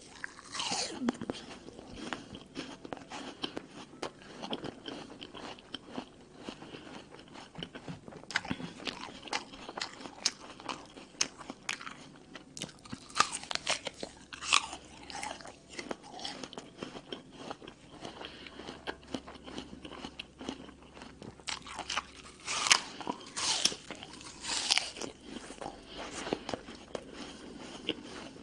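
Close-up crunching and chewing of a crisp red apple: bites snap through the flesh and are chewed with wet, crackly crunches, with a few louder bursts of crunching around the middle and again near the end.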